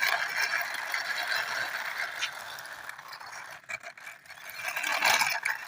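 A small plastic toy auto rickshaw pushed by hand along a wall, its wheels rolling with a steady rattle and scattered clicks.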